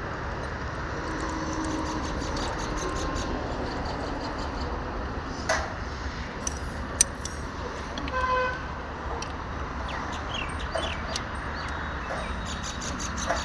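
Steady background traffic noise from the road, with a short vehicle horn toot about eight seconds in and a couple of sharp clicks before it.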